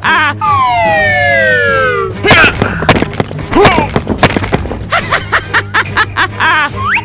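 Cartoon sound effects over background music: a brief warbling tone, then a long falling whistle that slides down for about a second and a half, followed by short chirps and warbles and a quick rising whistle at the end.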